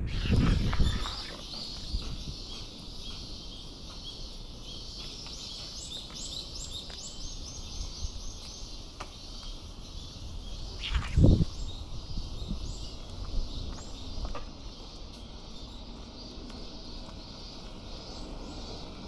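Outdoor ambience: small birds chirping over a steady high hiss. There is wind rumble on the microphone at the start and a brief low thump about halfway through.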